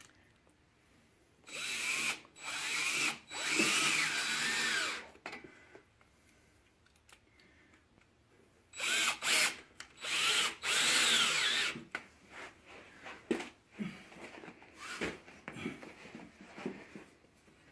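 Power drill driving No. 10 by 1-inch screws: two runs of short bursts, about a second and a half in and again about nine seconds in, the motor's whine rising and falling with the trigger. Light clicks and knocks follow near the end.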